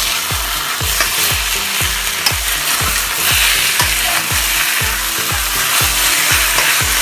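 Marinated chicken sizzling in a hot wok while a metal wok spatula flips and scrapes it, with scattered clicks of the spatula against the wok.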